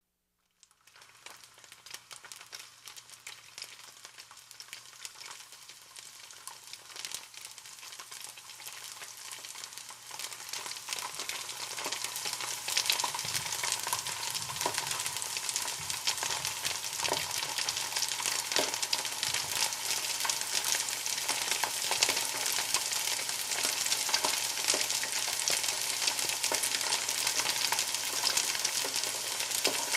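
Food frying in hot oil: a dense sizzle full of small crackles and pops. It starts faint and grows steadily louder over the first dozen seconds, then stays at a steady sizzle.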